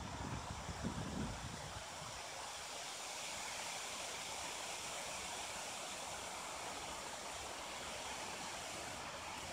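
Steady outdoor background noise, an even hiss with no distinct events, with some low rumbling bumps on the microphone in the first two seconds.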